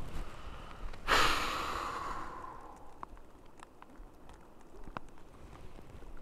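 A single loud, breathy exhale about a second in, fading over a second and a half, followed by faint scattered clicks.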